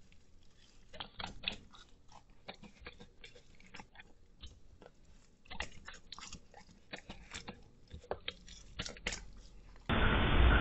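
A dog chewing and smacking its mouth as it bites food off a plastic cutting board, in quick, irregular wet clicks. Near the end the sound switches abruptly to a loud steady hiss.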